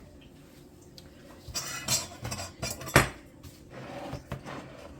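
Kitchen clatter of dishes and utensils being handled: a few scattered clinks and knocks, the sharpest about three seconds in.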